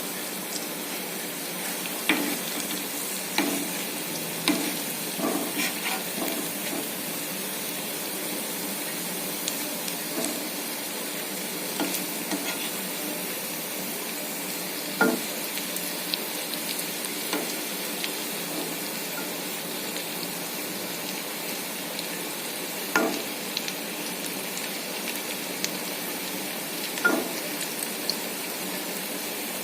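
Banana-flower fritters (bara) sizzling in hot oil in a kadhai on a low flame: a steady frying hiss. Short sharp clinks of a spatula against the pan come now and then as the fritters are turned, a cluster in the first few seconds and single louder ones around halfway and near the end.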